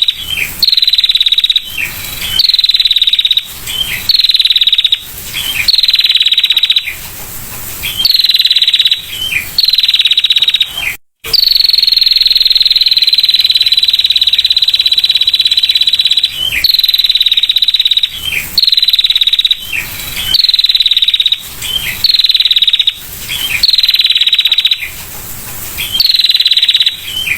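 Female prinia (prenjak) giving its rapid 'ngetir' trill: a high trill about a second long, repeated over and over, with one long trill of about five seconds near the middle. Short harsh rasping noises come between the trills.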